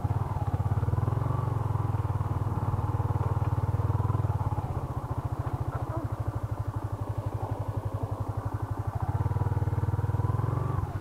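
Yamaha Exciter 150's single-cylinder four-stroke engine running at low speed, easing off about halfway to a slow, even beat of separate firing pulses and picking up again near the end.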